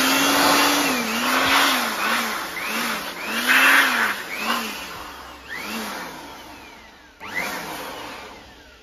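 Handheld electric dust blower running in short bursts: the motor whine rises and falls about eight times as the trigger is pulsed, with rushing air, then dies away. One last burst comes about seven seconds in and winds down.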